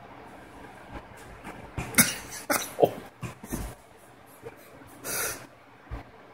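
Bedsheet rustling and soft thumps as a cat wrestles with a blanket on a bed: a cluster of sharp swishes between two and four seconds in, then a longer swish about five seconds in.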